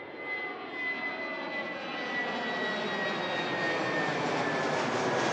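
Twin-engine jet airliner flying over on climb-out: a steady engine roar with a high whine that slowly falls in pitch.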